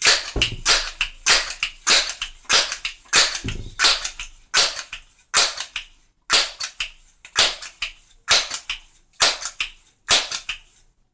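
A Crosman 1322 .22 multi-pump air pistol being pumped up for a 15-pump shot: repeated swishing strokes of the pump lever, about two a second, each with a rush of air.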